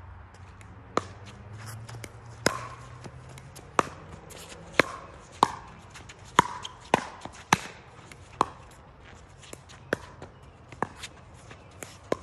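Pickleball rally: paddles striking the hard plastic ball with about a dozen sharp pocks at uneven spacing of half a second to a second and a half, coming quickest and loudest in the middle.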